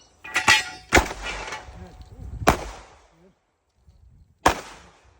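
A string of about five gunshots on a timed 2-gun stage, the first three in quick succession and two more spaced out, with steel targets ringing after the early hits.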